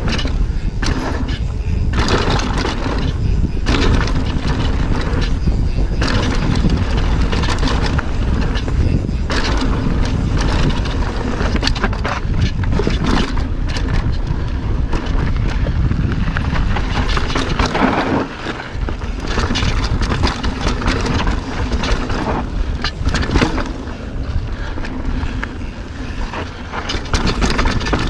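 Mountain bike riding fast down dry, rocky dirt singletrack: tyres crunching over dirt and stones, the bike knocking and rattling over bumps all the way, over a steady low rumble.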